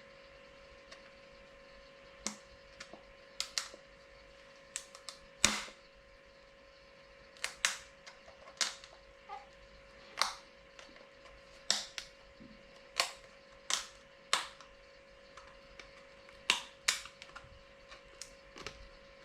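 Irregular sharp clicks and knocks, about twenty of them at uneven spacing, with the loudest about five and a half seconds in, over a steady hum.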